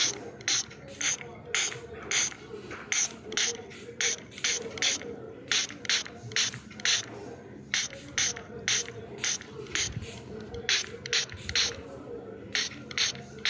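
A run of sharp mechanical clicks, about two a second in an uneven rhythm with a short gap about ten seconds in, over steady low background noise.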